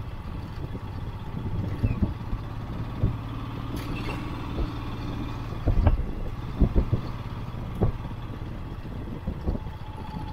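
Motorcycle engine running steadily at low speed on a rough dirt track, with sharp knocks and rattles from the bike jolting over bumps, several close together just past the middle.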